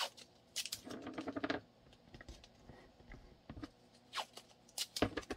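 A string of light clicks and taps with some rubbing and rustling, from small plastic blocking pieces being handled and fitted around a pistol on a workbench.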